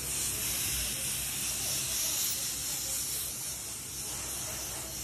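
Compressed-air blow gun hissing steadily as its nozzle is played over the surface of a paper print.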